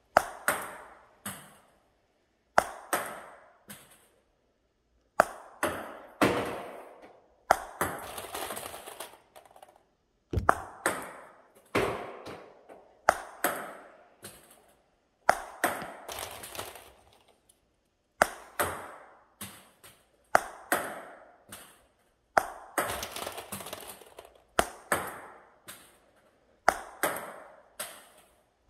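Table tennis ball hit with a paddle and bouncing, in sharp clicks: each shot is a loud crack followed by a run of quicker, fading bounces. The shots repeat a dozen or so times, one every two seconds or so.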